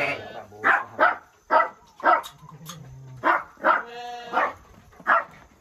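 A dog barking repeatedly in short, sharp barks, about half a second apart, with a brief pause in the middle.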